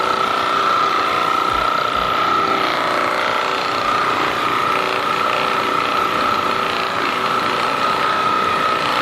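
A small motorized device running with a steady high-pitched whine over a mechanical rattle, with a few faint low thumps early on.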